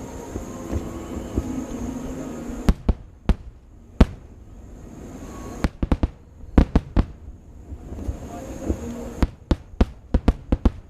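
Aerial fireworks exploding: a string of sharp bangs that starts about three seconds in and comes in three quick clusters, the last the densest.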